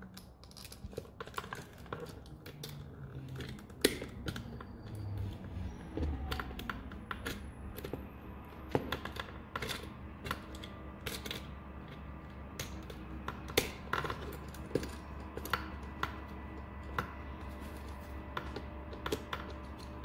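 Irregular clicks and taps as hands bend a wire around the screw terminal of a plastic electrical outlet held close to the microphone. A low steady hum comes in about six seconds in.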